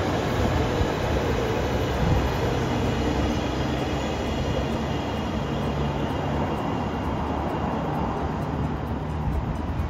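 Electric multiple-unit train running past on elevated track: a steady rumble of wheels on rail that slowly fades as the last cars pull away.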